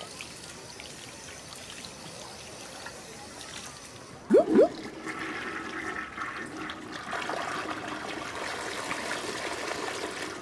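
Water sound effects: a faint trickle, then two quick rising plops about four seconds in, followed by water rushing like a toilet flush, for the sewer network.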